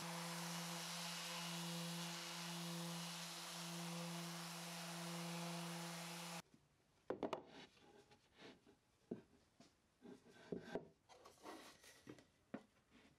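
A Mirka Deros random orbital sander runs steadily across a plywood panel with 180-grit paper: a steady hum over the hiss of the disc on the wood. It cuts off suddenly about six seconds in, and a few faint knocks of plywood pieces being handled follow.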